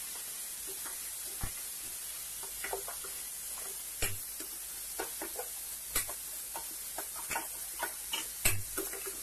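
Ginger-garlic paste and curry leaves sizzling steadily in hot oil in a stainless steel kadai. A spoon stirring scrapes and taps against the pan, with scattered clicks that come more often from about four seconds in.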